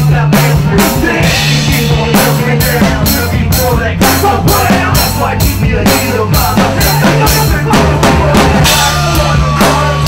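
Drum kit played live with sticks, a steady beat of kick, snare and cymbal hits over a bass line.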